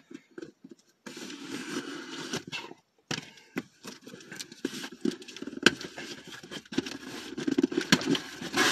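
Box cutter slitting the tape on a cardboard shipping box, with uneven scraping and rustling of cardboard and a few sharp clicks.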